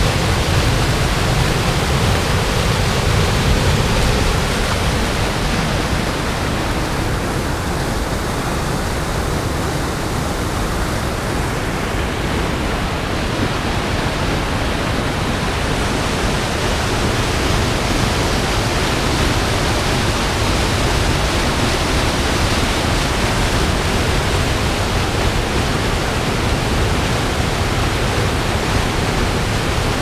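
Creek water pouring over small waterfalls and cascades, a steady loud rush of falling water.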